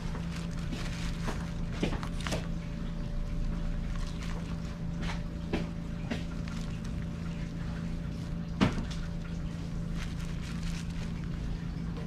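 Steady low machine hum with a faint higher tone, under scattered light clicks and rustles from gloved hands handling rice-cake slices and styrofoam trays; one sharper knock about two-thirds of the way in.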